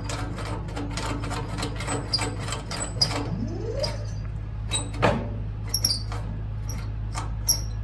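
Farmall Cub's starter trying to turn the engine on a dead battery: a quick run of clicks, a short rising whine about three seconds in, then a few scattered clicks, and the engine does not start.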